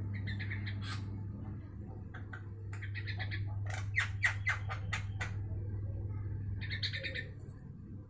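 Javan myna (jalak kebo) giving bursts of quick, harsh, chattering squawks: a short burst at the start, longer runs through the middle with the loudest about four seconds in, and a last burst near the end. A steady low hum runs underneath.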